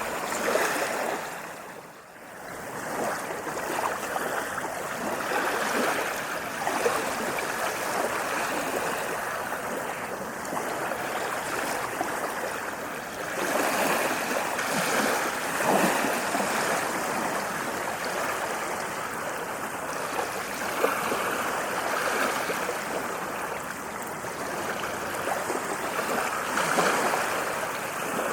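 Ocean waves washing onto a sandy beach: a continuous rushing wash that swells and ebbs every several seconds, with a brief drop in level about two seconds in.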